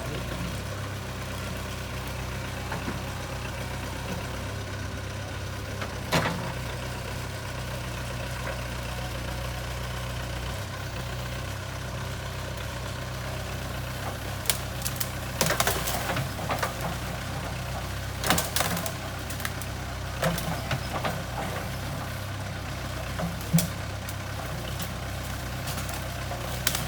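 JCB 3CX backhoe loader's diesel engine running steadily at low revs, with a few sharp knocks and clanks from about a quarter of the way in and more through the second half.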